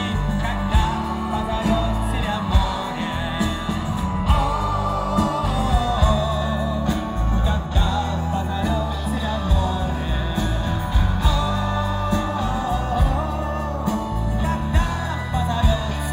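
Live folk-rock band playing at full volume through a club PA: drums, bass, guitars and keyboard, with a wavering melodic lead line on top.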